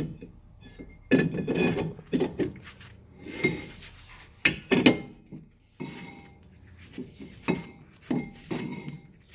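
Rusty brake drum being fitted back onto a Ford Transit's rear hub by hand: a series of metal scrapes and knocks as it is pushed and worked over the wheel studs, with one longer scrape about three and a half seconds in.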